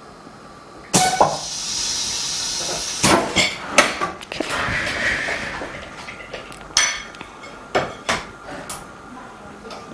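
Vacuum laminating machine venting and being opened: a clack, then a hiss of air for about two seconds, followed by several hard plastic and metal clacks and knocks of the lid and mold, a second shorter hiss, and a few more knocks.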